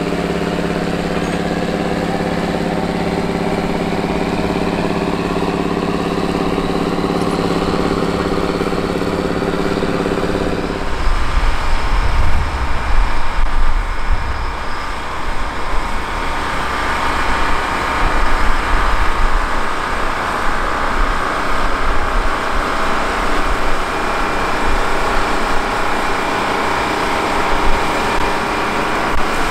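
A Steiger Cougar II articulated tractor's diesel engine runs steadily under load, pulling a tillage implement. About 11 seconds in it gives way to a John Deere 8020's GM 6-71 two-stroke diesel pulling a plow: an uneven low rumble with a steady high whine over it.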